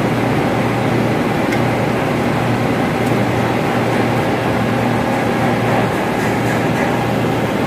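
Loud steady drone of running ventilation machinery, with a constant low hum underneath.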